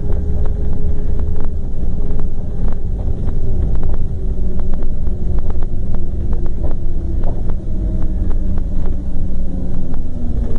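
Scania K420 coach's rear-mounted engine running under way: a steady, loud low rumble whose engine note slowly sinks and then climbs again near the end. Scattered sharp clicks and rattles come through it.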